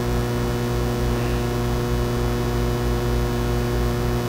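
Steady electrical mains hum: a low, unchanging buzz with evenly spaced overtones.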